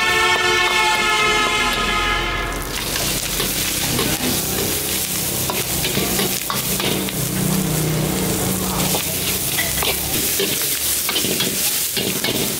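A steady pitched hum with overtones fills the first couple of seconds. About two and a half seconds in, beef and pickled mustard greens go into a hot wok and set off loud sizzling, and a steel ladle scrapes and clinks against the wok as they are stir-fried.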